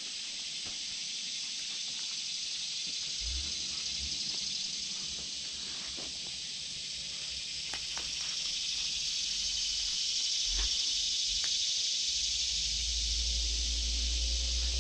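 Steady high-pitched insect chorus droning in summer woodland, with a few faint snaps of footsteps through leaf litter and twigs. A low rumble on the microphone comes in near the end.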